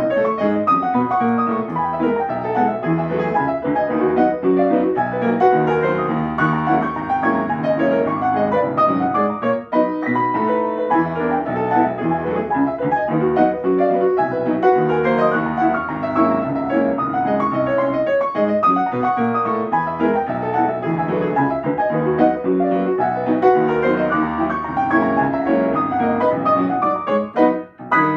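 Yamaha upright piano playing a ragtime piece solo, with dense notes throughout. Near the end the playing breaks off briefly, then closes on a final chord that rings on.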